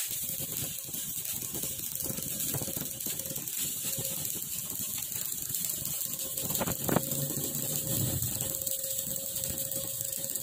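Stick (MMA) arc welding with an iNGCO MMA3202P 320A inverter welder: the arc strikes at the start and then crackles and sizzles steadily, with a couple of louder pops about two-thirds of the way through.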